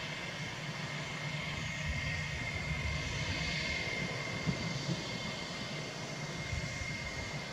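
Jet engines of a Vietnam Airlines Airbus A321 running as the airliner rolls along the runway: a steady high whine over a low rumble.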